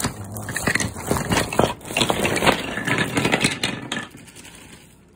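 Wooden toy train track pieces clattering together as they tumble out into a heap: a dense run of hollow wooden knocks that dies away about four seconds in.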